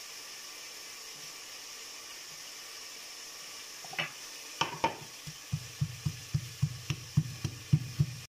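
Pestle pounding garlic, ginger and green chilies in a stone mortar: a regular run of dull thumps, about three to four a second, from about five and a half seconds in. Before it, a few sharp clicks as the pieces are dropped into the mortar about four seconds in, over a steady faint hiss.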